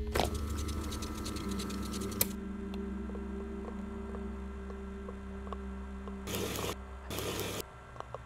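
A camcorder's play button clicks, and the tape mechanism whirs and crackles for about two seconds before a second click. A low steady drone follows, with faint ticks and two short bursts of tape static near the end.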